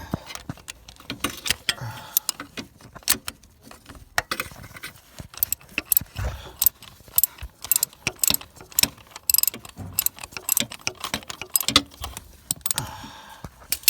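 Ratchet wrench with a 17 mm socket clicking in quick irregular runs, with metal clinks, as the starter motor's mounting nut is worked loose.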